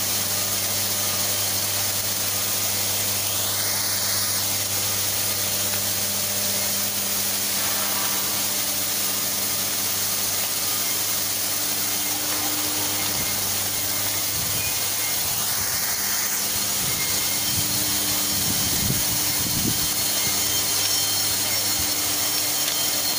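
Water spray fire protection system on a power transformer, many nozzles spraying water onto the tank, giving a steady, even hiss. A steady low hum runs underneath.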